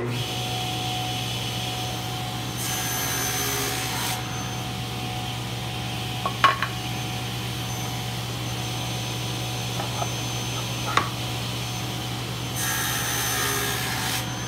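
Table saw starting up and running with a steady hum; twice, about two and a half seconds in and again near the end, the sound thickens and gets a little louder for a second or two as the blade cuts through the wooden plane body held in a sliding jig. A few short knocks in between as the jig is handled.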